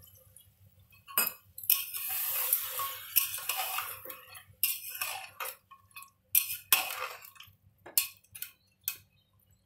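Water poured from a glass into a pressure cooker of frying mutton and masala, a rushing hiss for about two seconds, then a metal spoon stirring, clinking and scraping against the pot several times.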